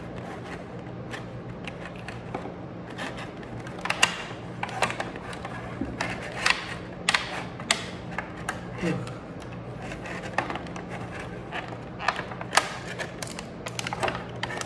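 Irregular clicks, taps and knocks of plastic jump-rope handles and their packaging being handled, over a steady low hum.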